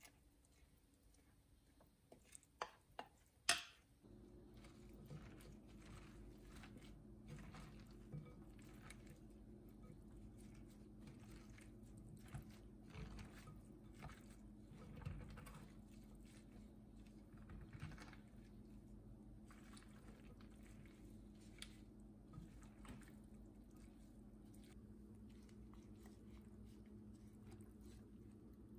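Gloved hand mixing napa cabbage with chili paste in a glass bowl: faint, irregular squishing and rustling. A few sharp knocks come in the first few seconds, the loudest about three and a half seconds in, and a low steady hum runs beneath from about four seconds on.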